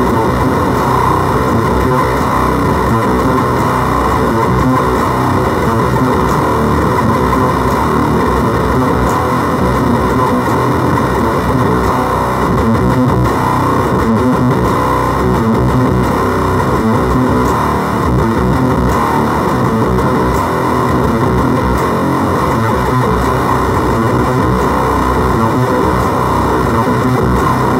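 Electric guitar played through a switched-on FOWL Sounds Octagram Fuzz pedal and a small amplifier: thick, fuzz-distorted tone that goes on without a break.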